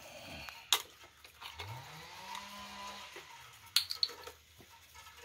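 Two sharp clacks, a few seconds apart, as empty plastic engine-oil bottles and caps are handled and set down on a concrete ledge. Between them a low hum rises in pitch, holds briefly, then falls away.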